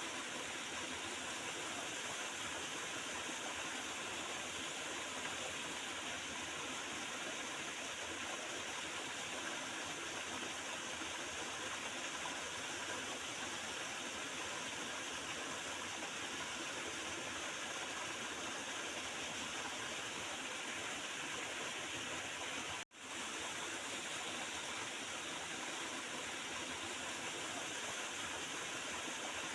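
Water of a small river gurgling and rushing steadily. The sound cuts out for a split second about three-quarters of the way through.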